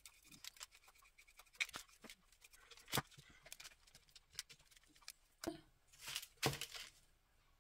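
Faint scattered light taps and soft brushing strokes as a paintbrush works decoupage medium over a napkin piece on a small birdhouse, with a few louder taps around the middle and past halfway.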